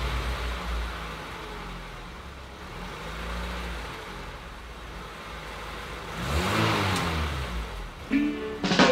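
A car engine running, its pitch swelling up and down about six and a half seconds in, over a steady hiss. Music with plucked strings starts near the end.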